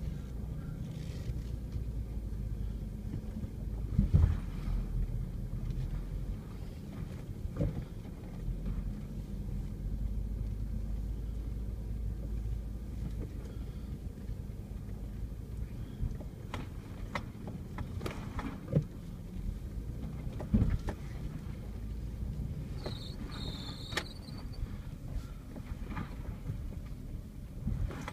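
Vehicle engine running low and steady, heard from inside the cabin while crawling over a rough dirt trail, with a few knocks and rattles from the bumps, the loudest about four seconds in.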